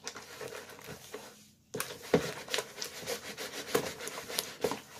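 Wet, sticky slime mixture being kneaded and squished by hand in a plastic bowl. It rustles softly at first, then from about two seconds in gives a quick, irregular run of sticky clicks and smacks.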